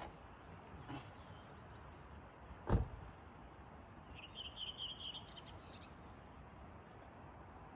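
A small bird's rapid, high trill of chirps lasting about a second and a half midway through, over a steady faint background hiss. A single sharp thump, the loudest sound, comes a little before the trill.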